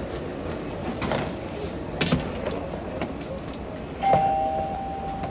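Electronic two-tone chime in a Dulles airport AeroTrain car, sounding about four seconds in and holding for about a second, over a steady hubbub of passengers and a couple of knocks before it.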